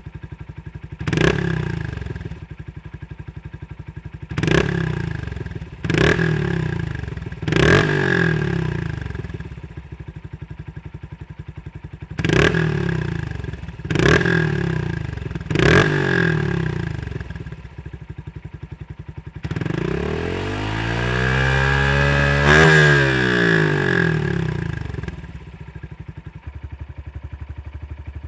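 Honda CRF125F's air-cooled 125 cc four-stroke single running through a Delta Barrel 4 mini silencer exhaust. It idles, with seven quick throttle blips over the first sixteen seconds. About twenty seconds in comes a longer rev that climbs and falls over some five seconds, then it settles back to idle.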